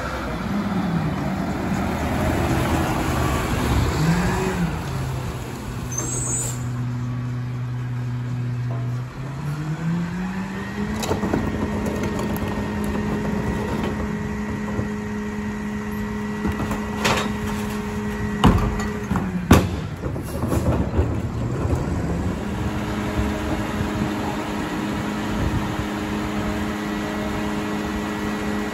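Rear-loader garbage truck working a recycling stop: a rattling clatter of recyclables tipped into the hopper at the start, then the engine revs up to a steady higher speed with a thin hydraulic whine as the packer cycles. A few sharp clanks come a little past halfway, and then the engine drops back to idle.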